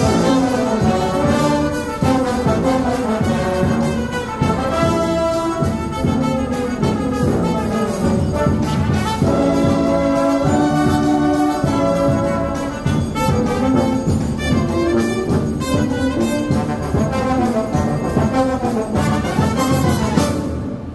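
Brass marching band playing full out: trumpets, trombones and sousaphones sounding together over regular percussion hits. The whole band cuts off together at the very end as the piece finishes.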